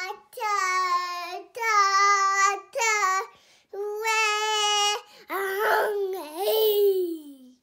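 A three-year-old boy singing a series of held notes, each about a second long with short breaks between them. Near the end his voice wavers and slides downward in pitch.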